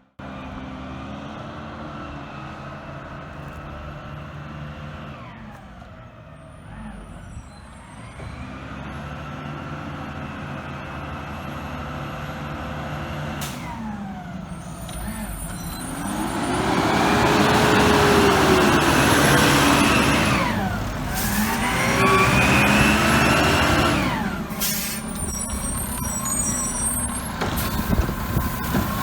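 Garbage truck's brakes squealing in high tones that slide up and down over the engine, loudest in the second half with a hiss of air.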